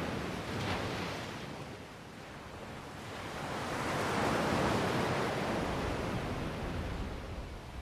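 Ocean waves washing onto the shore below, a steady rush that eases about two seconds in and then swells as a wave breaks, loudest around the middle.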